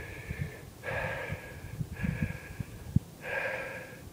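A man breathing hard, out of breath from a steep uphill hike: four heavy breaths in a row, with faint low knocks underneath.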